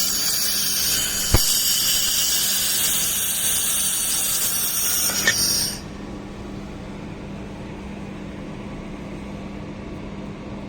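Handheld laser welding torch firing with shielding gas flowing: a loud steady hiss that cuts off suddenly about six seconds in, with one click about a second and a half in. A steady low hum continues underneath.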